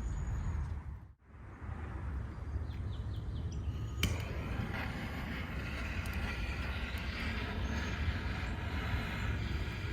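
Wood fire crackling in a Nurgaz Campout fireplace camping stove, under a low wind rumble on the microphone. The sound drops out briefly about a second in; a sharp click about four seconds in is followed by denser crackling.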